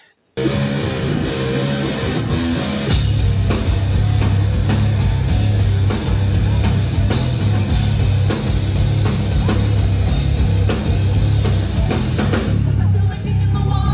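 A live heavy rock band plays a distorted electric guitar riff with bass and drums. The full band comes in heavily about three seconds in.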